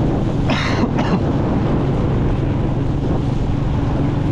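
Motorbike engine running steadily while riding, with wind buffeting the microphone. A brief hiss sounds about half a second in.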